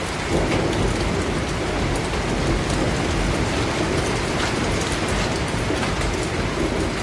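Steady rain falling, with a low rumble underneath that swells about a third of a second in and holds.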